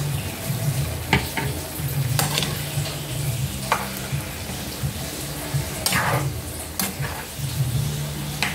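Chicken liver, pork and chayote sizzling as they sauté in a frying pan, with a spatula stirring and scraping against the pan several times.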